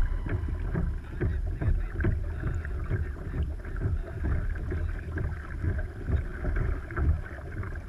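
Water slapping and sloshing irregularly against a Hobie Outback fishing kayak's hull, with wind rumbling on the microphone.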